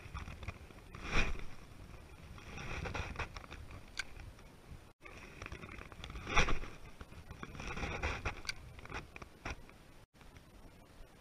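Casting and retrieving with a spinning rod and reel, twice: each time a quick swish of the cast, then a couple of seconds of the reel cranking the line back in with a scraping rattle.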